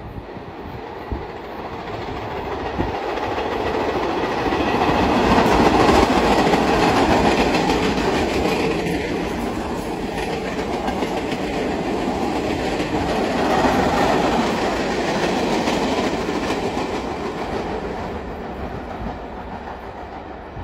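New York City subway train running past on the tracks, a steady rumble of wheels on rail. It swells to a peak about six seconds in, eases off, swells again around fourteen seconds, then fades away.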